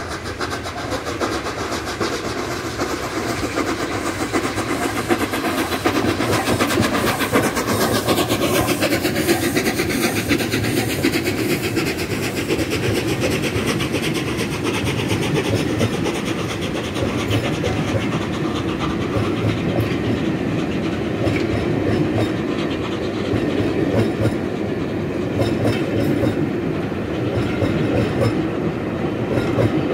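A long passenger train of coaches running past close by: a steady rumble of wheels with clickety-clack over the rail joints. A falling sweep in the hiss about eight seconds in as the head of the train goes by.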